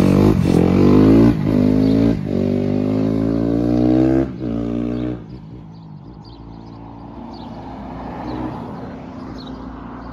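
Car engine accelerating through the gears: its pitch rises steadily and drops back at each of several shifts. After about five seconds it falls to a quieter, steady cruise.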